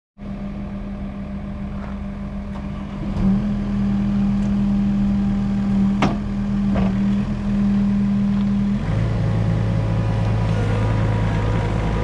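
Deere 318G skid steer's diesel engine running steadily. It gets louder about three seconds in and settles to a lower, deeper note near nine seconds, with two short sharp clanks in between.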